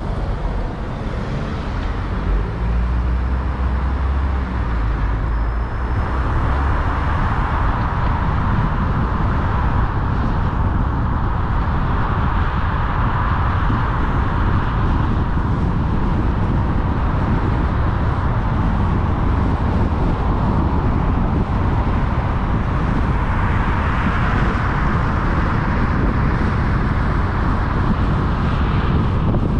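Steady road noise of a car driving at speed: tyres on tarmac with engine hum. The low hum is deeper and stronger in the first few seconds.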